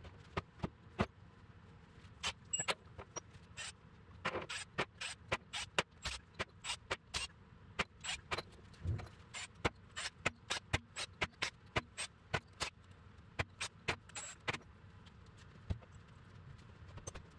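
A string of sharp metallic clicks and clinks, irregular and about two or three a second, from hand tools being handled on and around a bare V8 engine block.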